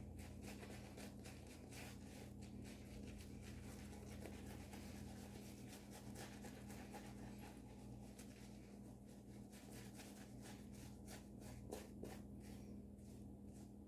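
Shaving brush working lather onto a face: faint, quick scratchy strokes repeating over and over, over a low steady hum.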